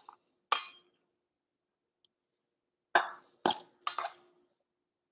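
Metal tongs clinking against a stainless steel mixing bowl while tossing a salad: one clink about half a second in, then three more close together near the end.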